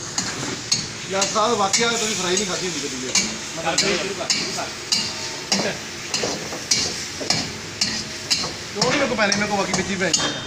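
Food frying in oil in a wok over a fire, with a steady sizzle. A metal ladle stirs and clinks against the pan again and again.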